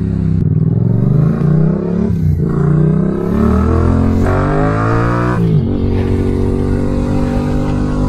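Yamaha MT-07's parallel-twin engine through a full Mivv exhaust with headers, on a ride. The revs climb, dip at about two seconds as in a gear change, and climb again. About five and a half seconds in the pitch falls sharply, then holds steady.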